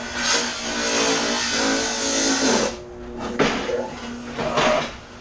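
Aerosol spray-paint can hissing in a long burst of about two and a half seconds, then in shorter bursts, laying paint onto the surface of a bucket of water for hydro dipping.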